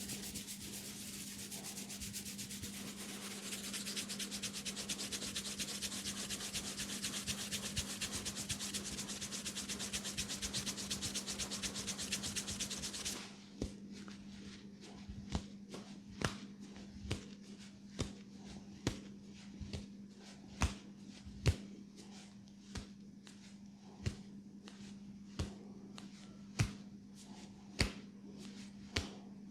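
Fingers rubbing rapidly through hair and over the scalp in a head massage: a fast, even rubbing that stops abruptly about halfway. Then comes a series of sharp single clicks or snaps, about one a second.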